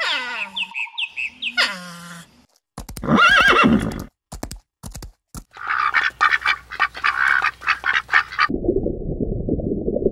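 A string of separate animal calls cut one after another: short calls falling in pitch, then another pitched call, then a duck quacking repeatedly for about two and a half seconds, ending in a low, even rushing noise.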